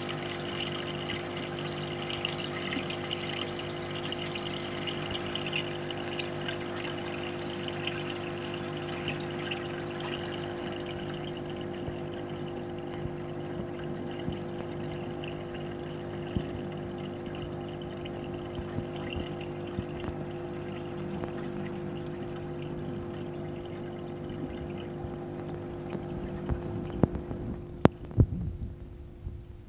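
Aquarium aeration and pump running: a steady motor hum under the bubbling and splashing of air bubbles rising through the tank water. Near the end a few sharp knocks come, and the bubbling fades while the hum goes on.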